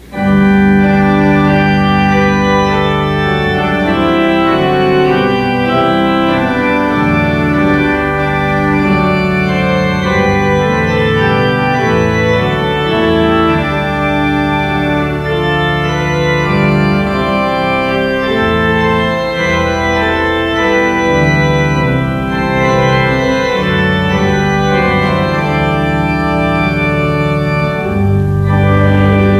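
Church organ coming in suddenly and playing a slow succession of full, sustained chords, with a deep bass line underneath.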